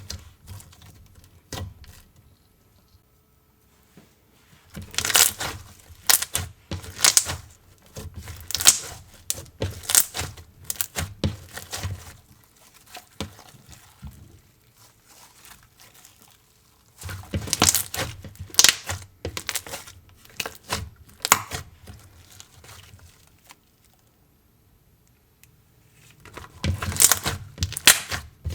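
Slime being squished and stretched by hand, giving off crackly, sticky popping clicks in three bursts with quiet gaps between.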